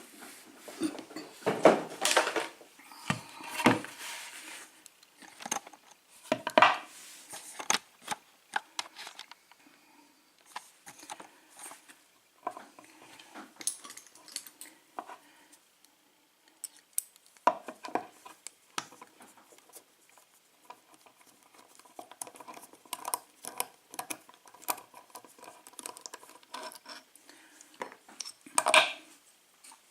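Irregular metal clicks, clinks and knocks of a padlock and small lockpicking tools being handled, in clusters with quieter ticking between.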